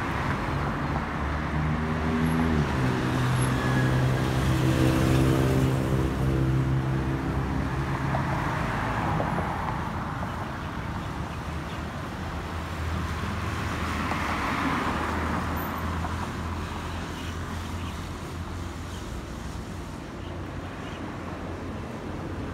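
Street traffic: a heavy vehicle's engine runs close by with a steady hum that drops in pitch a couple of seconds in, then other vehicles pass with a rise and fall of engine and tyre noise, about nine and fifteen seconds in.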